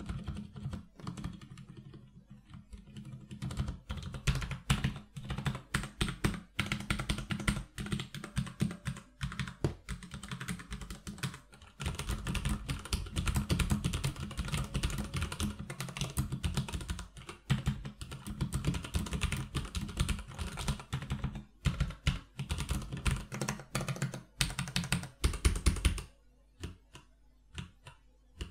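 Typing on a Durgod K320 Taurus tenkeyless mechanical keyboard with Cherry MX Brown switches and double-shot PBT keycaps: a fast, continuous run of key clacks. Near the end it drops to a few faint clicks.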